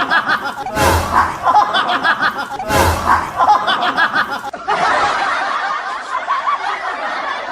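Laughing sound effect, a snickering laugh that repeats about every two seconds, each time starting with a short thump. About halfway through it gives way to a different, denser laughing sound.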